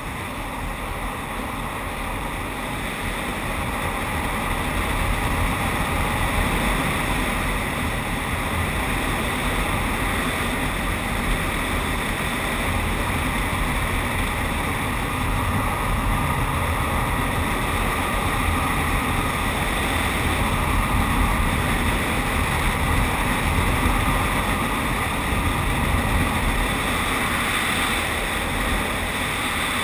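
Steady rush of wind over an action camera's microphone, with the rumble of longboard wheels rolling on asphalt at downhill speed, growing louder over the first few seconds.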